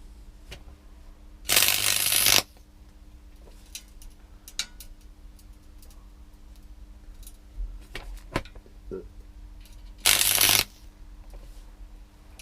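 Arc welder striking an arc twice on scrap metal: a loud crackling sizzle lasting about a second, about a second and a half in, and a shorter one near the end. Faint taps and clicks fall between, over a steady low hum.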